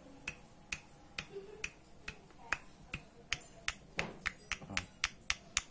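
Sharp metallic clacks, about two a second and quickening after about three seconds, as the connecting rod on a removed Yamaha Mio Soul GT 125 crankshaft is struck by hand. The rod rattles on its big end, a sign of a loose, worn big-end bearing.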